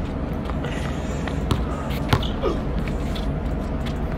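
A basketball being dribbled on an outdoor court: a handful of separate, irregularly spaced bounces over a steady background hiss.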